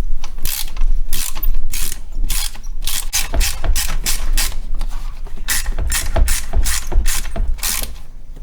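Hand ratchet clicking in quick repeated strokes, about two to three clicks a second, as a very tight 15 mm pulley bolt on the engine's drive-belt system is worked loose. Dull low knocks come in under the clicking in the middle.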